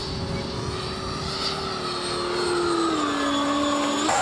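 Electric RC model plane flying past, its motor whine sliding down in pitch as it goes by. Just after four seconds the sound changes abruptly to a louder, higher whine.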